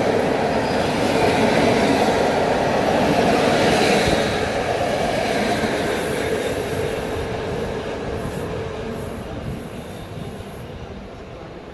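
A train of passenger coaches rolling past, steel wheels running on the rails. It holds steady for about four seconds, then fades away as the last coach moves off.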